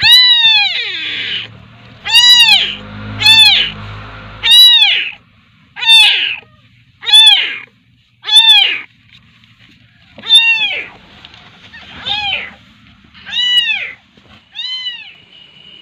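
Young kitten meowing loudly over and over, about eleven high calls that each rise and fall in pitch, roughly one a second.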